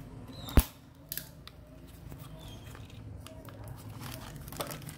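Utility knife blade cutting through the tape seal on the end flap of a small cardboard box, with one sharp snap about half a second in and a smaller one a moment later, then light rustling and clicks of the cardboard box being handled.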